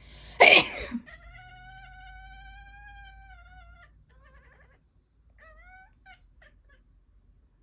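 A person sneezes once, loudly, and right after it a domestic cat yells back. The cat gives one long meowing yowl of about three seconds, then a few short meows, its usual reaction whenever its owner sneezes.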